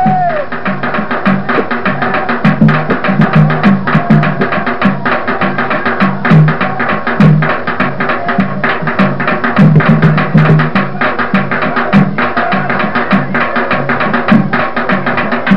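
Chigoma dance music carried by drums, with sharp wooden or hand strikes over a low drum pattern in a fast, steady, repeating rhythm.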